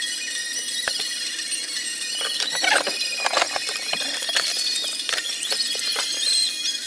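Short clicks and taps of a circuit board and a plastic IC socket being handled on a bench, over steady high-pitched squeaky chirping of unknown source.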